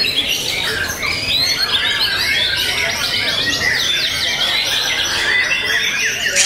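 White-rumped shama (murai batu) singing a fast, continuous run of varied chirps and whistles, the notes sweeping quickly up and down.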